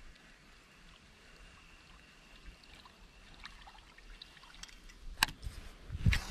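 Faint waterside quiet with a light trickle of water and a thin steady high tone, then scattered small ticks. Two sharp clicks come near the end as the camera is handled.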